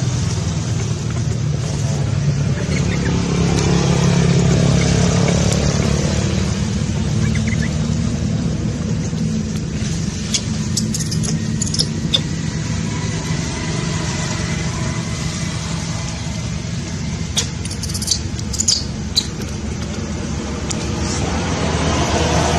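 Steady low rumble of a motor vehicle engine running nearby, with a few short crackles about halfway through and again near the end.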